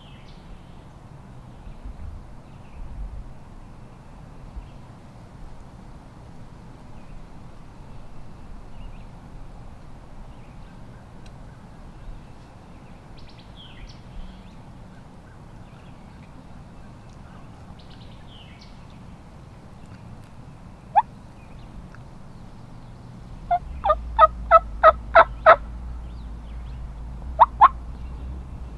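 Turkey yelping: one sharp yelp, then a run of about eight evenly spaced yelps, then two more near the end, over a quiet outdoor background with a few faint songbird chirps.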